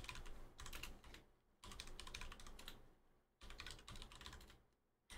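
Faint computer keyboard typing: three quick runs of keystrokes with short pauses between.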